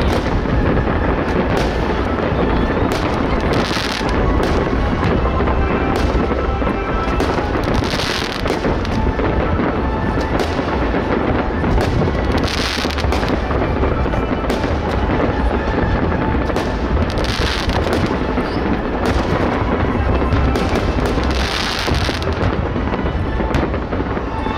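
Fireworks display going off without pause: a dense run of bangs and booms, with a louder swell of crackle about every four to five seconds.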